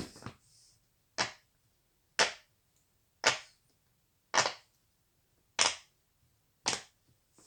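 Bubbles of a silicone pop-it fidget toy being pressed through one by one. Each press gives a sharp pop, about one a second, seven in all.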